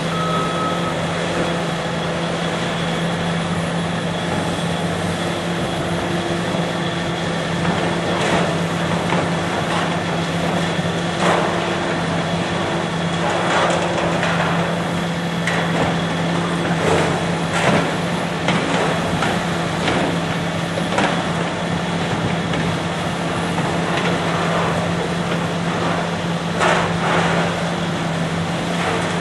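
Heavy diesel demolition machinery running steadily while steel is pulled out of a building, with irregular clanks and scrapes of metal about every few seconds.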